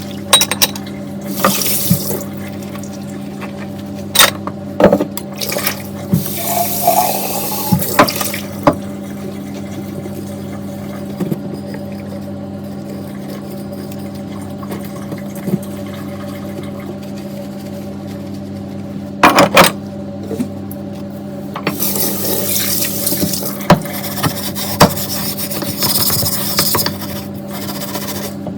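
Tap water running into a kitchen sink in spells while dishes are washed, with scattered knocks and clinks of dishes and utensils. The water runs longest from about two-thirds of the way in, over a steady low hum.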